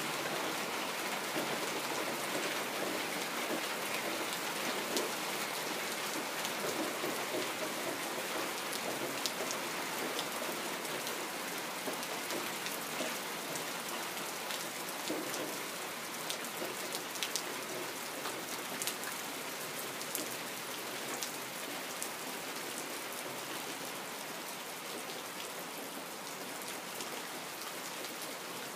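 Steady rain falling: an even hiss with scattered sharp drop hits, easing slightly toward the end.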